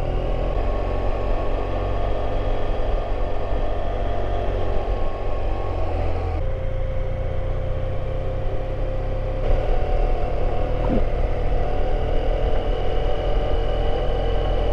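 BMW F700GS motorcycle's parallel-twin engine running steadily at low speed as the bike rolls along. The engine note shifts abruptly twice, about six and nine and a half seconds in.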